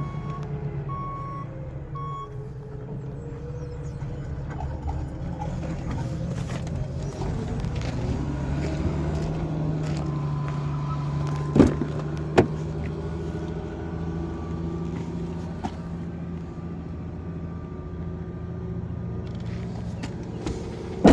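A vehicle engine running steadily, its pitch rising a little about eight seconds in. A reversing alarm beeps during the first two seconds, and there are two sharp knocks around the middle.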